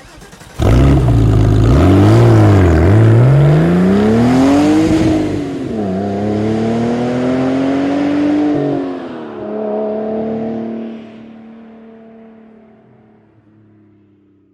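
Car engine and exhaust revving. It starts suddenly and loud, gives a couple of quick blips, then climbs in one long rising rev and drops. A second, slower rise follows, then the engine settles to a steady note that fades away.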